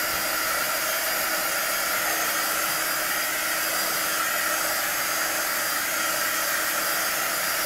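Heat embossing wand blowing a steady hiss with a faint hum under it, passed over wet acrylic paint to burst the air bubbles.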